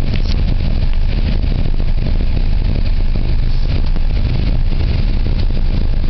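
Cabin noise inside a Pontiac Sunfire driving down a steep, narrow hill road: a loud, steady low rumble of engine and tyres, with a few faint ticks and rattles.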